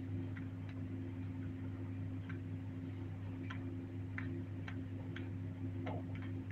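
Faint, irregular ticks from a computer mouse's scroll wheel, over a steady low electrical hum.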